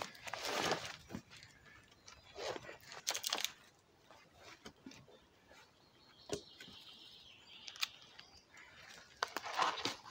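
Long dead-wood poles dragged over the forest floor and laid against a shelter's ridge pole as rafters: scraping, rustling swishes at the start, a couple more a few seconds in and again near the end, with a few sharp knocks in between.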